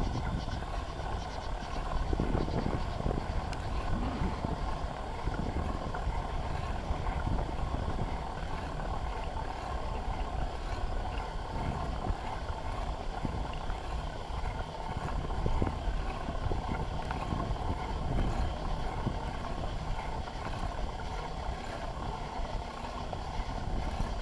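Bicycle in motion, heard from a handlebar-mounted camera: a steady rolling rumble from the tyres with frequent small rattles and knocks from the bike over the ground.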